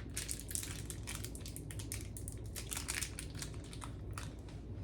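Plastic candy wrapper crinkling as it is handled, a dense run of small crackles.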